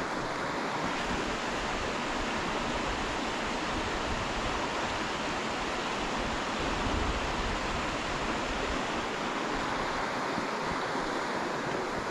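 A stream running steadily: a continuous, even rush of flowing water.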